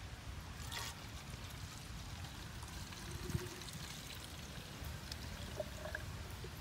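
Coconut water poured from a plastic measuring jug into a plastic water bottle, running in as a steady trickle.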